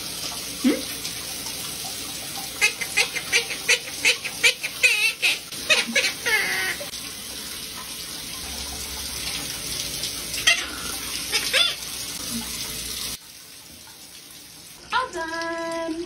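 Shower spray running steadily over a wet monk parakeet, with a run of short, sharp squawks and chatter from the parrot between about two and seven seconds in and a few more later. The water cuts off suddenly near the end, followed by a brief pitched call.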